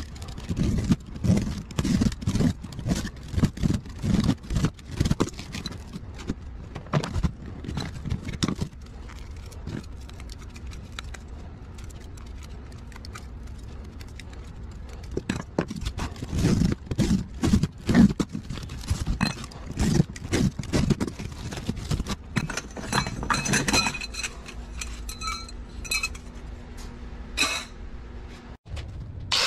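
Aluminium fins and copper tubing of an air-conditioner coil being pulled apart by hand in a steel tray: many light metal clinks, crunches and scrapes, quieter for a few seconds midway. Near the end a steady hum with a few higher tones joins in.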